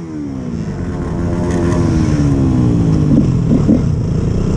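KTM Duke 200 single-cylinder motorcycle engine. Its revs fall right after the throttle is shut, then it runs on and grows gradually louder.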